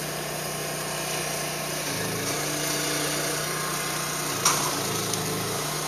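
Steady low engine hum, like an engine idling, with one sharp clink about four and a half seconds in.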